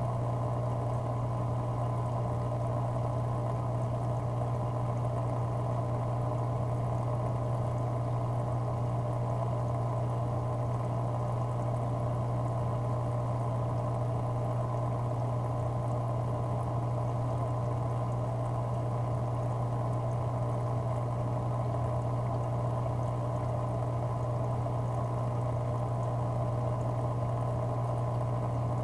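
Aquarium water circulation running: a steady splashing, trickling water noise over a constant low hum.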